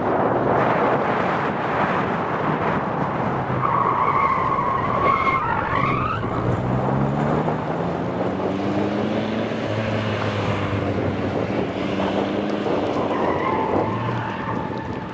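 Škoda saloon driven hard around a tight slalom course. Its tyres squeal in a gliding whine about four seconds in and again near the end, with the engine revving up and down in between.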